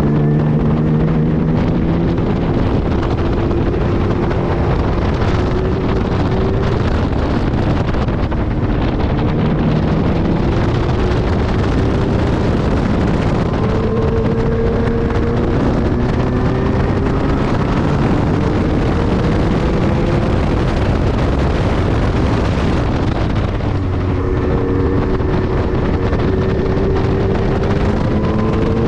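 Lotus 3-Eleven's supercharged V6 pulling through the gears on track. Its pitch climbs slowly, then drops back at each upshift, several times over. Heavy wind buffeting on the microphone runs throughout.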